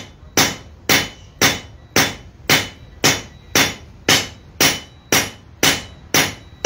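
Blacksmith's hand hammer striking a hot iron bar on an anvil in steady blows, about two a second, each with a short metallic ring. The blows are straightening a bend out of the bar.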